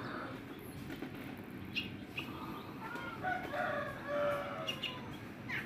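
Faint domestic chickens clucking and crowing in the background, with a few light clicks in between.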